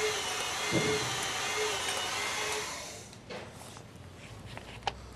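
Hydraulic torque wrench pump running steadily while the wrench builds pressure to break a bolt loose, then stopping about three seconds in. A few sharp clicks follow.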